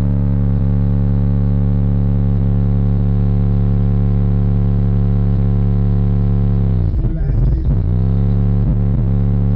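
Car-audio subwoofers playing a loud, steady low bass note with a strong stack of overtones. About seven seconds in the bass sweeps sharply down and back up, then dips briefly a few more times.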